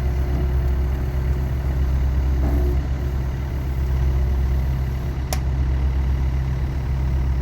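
Excavator's diesel engine running steadily with a low drone, and a single sharp click about five seconds in.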